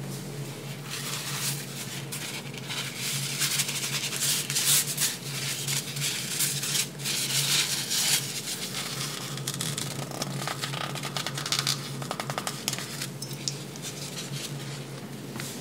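A sheet of paper crinkling and rustling as it is handled, in a run of crackly scrapes, over a steady low hum.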